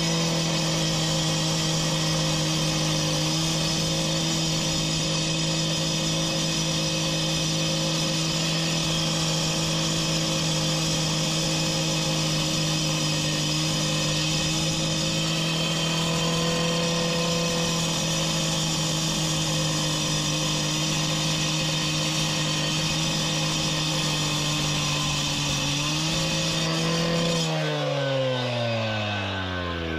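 Two-stroke gas cut-off saw running at a steady high speed as it cuts a marble paver. Near the end the engine rises briefly, then the throttle is let go and it winds down with a falling pitch.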